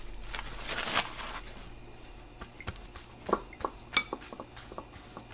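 Plastic cling wrap crinkling as it is peeled off a glass bowl of risen dough, for about the first second. Then a few short clinks against the glass bowl as hands press down into the dough.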